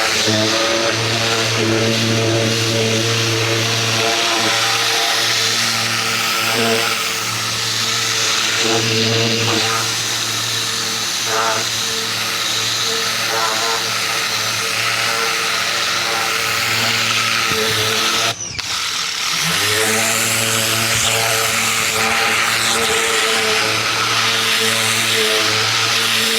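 Ryobi 2000 PSI electric pressure washer running, its motor and pump humming steadily under the hiss of the water jet. About 18 seconds in the motor cuts out for about a second, the sign of the trigger being released and the pump shutting off, then starts again and winds back up as spraying resumes.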